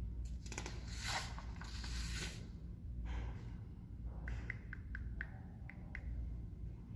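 Rustling and scraping in bursts, then a quick run of light clicks, over a low steady rumble: handling noise close to the microphone.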